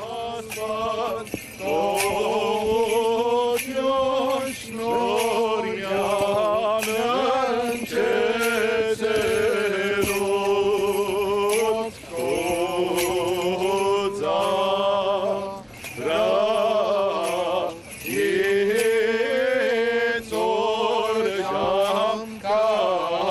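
Male clergy singing a slow, melismatic Armenian church chant over a steady low drone, with frequent light sharp clicks.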